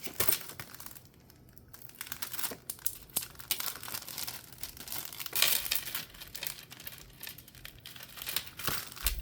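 Resealable plastic bag crinkling in fits and starts as it is folded over and its adhesive flap is sealed, with a short lull about a second in.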